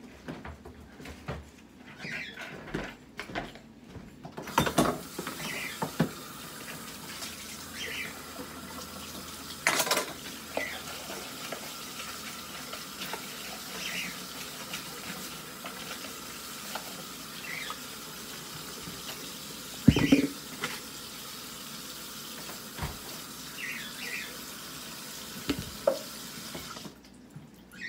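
Steady running water, as from a tap, starting about four seconds in and cutting off shortly before the end, with scattered knocks and small clinks, the loudest knock about twenty seconds in.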